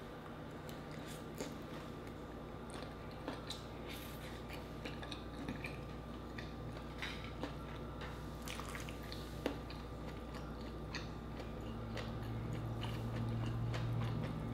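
Close-miked mouth sounds of chewing a mouthful of mussel and rice: soft, scattered wet clicks and smacks. A steady low hum sits underneath and grows stronger near the end.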